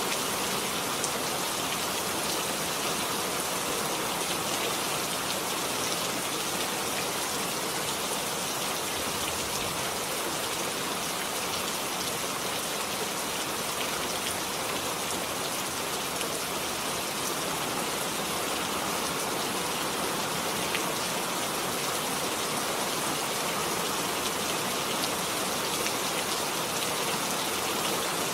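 Steady rain falling, with drops pattering on a surface.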